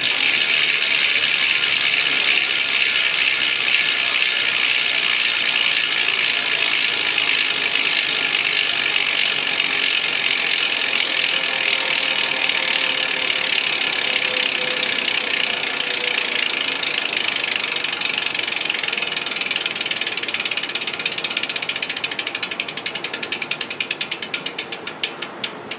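Rear freehub ratchet of a 2010 SRAM S60 road wheel clicking loudly while the wheel freewheels. The rapid buzz of pawl clicks slows into separate, slowing ticks over the last few seconds as the wheel spins down, then stops.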